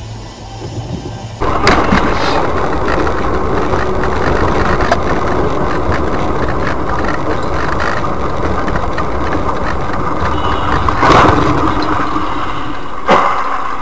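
Vehicle engine and road noise, loud and steady, starting abruptly about a second and a half in, with a few sharp knocks, one of them near the end.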